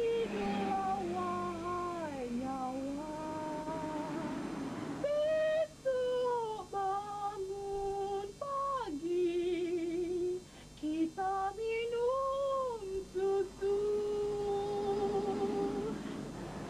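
A high, female-sounding voice singing a slow melody, holding long notes, sliding between pitches, with a wavering vibrato on some notes.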